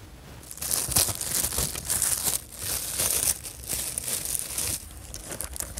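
Shiny metallic gift wrap crinkling loudly in rapid bursts as it is pulled and torn open by hand, starting about half a second in and dying away near the end.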